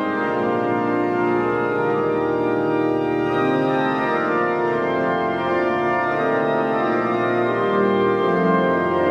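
Church pipe organ playing the closing hymn, sustained full chords that move from one to the next at a steady hymn pace.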